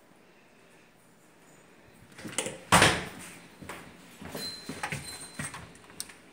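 Louvered bifold closet door being pulled open: a loud clatter about two and a half seconds in, then a string of lighter knocks and rattles.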